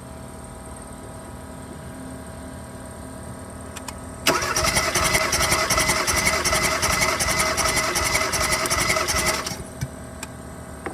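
Starter motor cranking a Kia Soul 1.6-litre engine with its spark plugs out, an even fast chatter lasting about five seconds from about four seconds in, then stopping. This is a compression test on cylinder 1, which builds to 120 on the gauge: that cylinder is fine.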